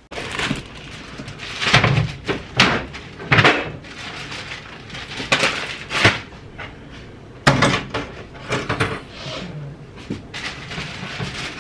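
Kitchen clatter: a string of irregular knocks and bangs as cookware and kitchen things are handled at a gas stove.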